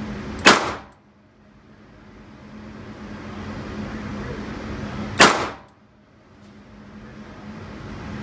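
Two single shots from a Smith & Wesson .38 Special revolver, about five seconds apart, each with a short echo off the walls of the indoor range.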